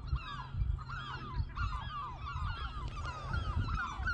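Seagulls calling non-stop, many birds at once, a constant overlapping chorus of short, down-curving calls.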